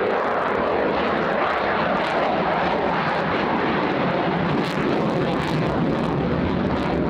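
Eurofighter Typhoon fighter jet's twin engines, a loud, steady rush of jet noise.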